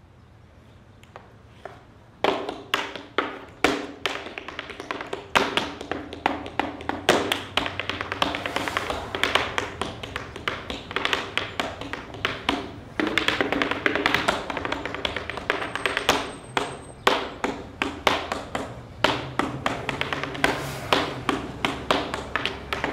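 Tap shoes striking a portable wooden tap board in fast, rhythmic runs of sharp clicks, starting about two seconds in.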